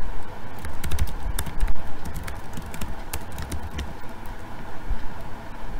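Typing on a computer keyboard: quick, irregular key clicks over a low rumble.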